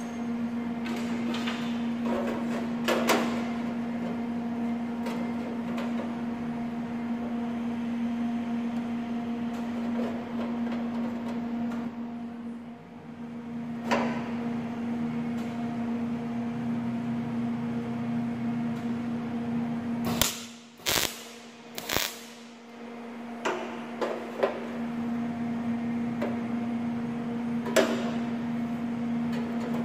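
A steady electrical hum from a workshop machine, over scattered knocks and clicks of sheet-steel panels being handled. About two-thirds of the way through come three short, sharp cracks about a second apart.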